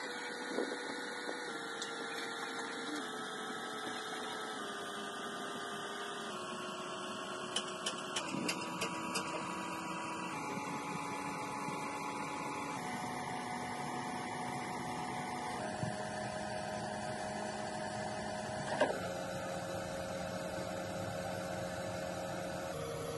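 Brake lathe turning a brake disc: a steady machine hum and whine made of several tones whose pitch steps lower every second or two as the cut goes on. A few light clicks come about eight seconds in, and a sharper knock near nineteen seconds in.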